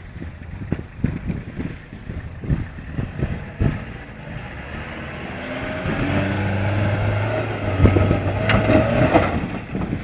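A 4x4 pickup's engine revving up under load as it climbs a loose rubble slope, rising in pitch and loudness from about halfway and loudest near the end. Scattered knocks and crunches come before it.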